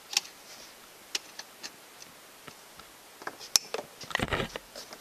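Scattered small clicks and taps of an extension cord plug being handled at a socket, with a denser run of knocks and rustling, one of them a dull thump, about three and a half to four and a half seconds in, as the plug refuses to go in.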